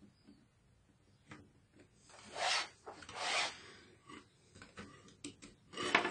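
Hands pressing a netbook's plastic palm-rest top case down onto its base: two scraping rubs about two and three seconds in, then a few light plastic clicks and another rub near the end.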